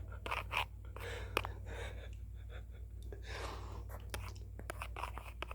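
Soft whispering and breathy mouth noises with scattered small clicks, over a steady low hum.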